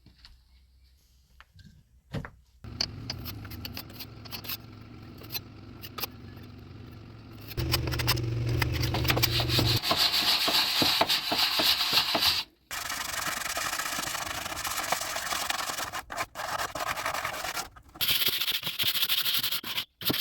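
A wooden door being sanded, a steady rubbing hiss over a low hum. It starts about three seconds in, gets much louder about eight seconds in, and stops briefly about twelve seconds in before going on.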